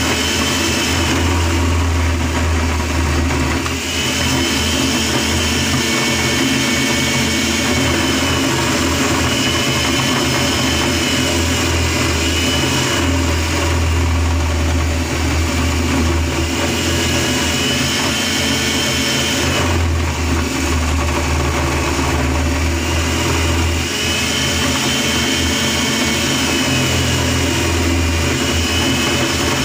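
A Bajaj food processor's 600-watt motor runs continuously as carrots are pushed through its grating disc. Its whine dips slightly and recovers every few seconds as the load of each carrot changes.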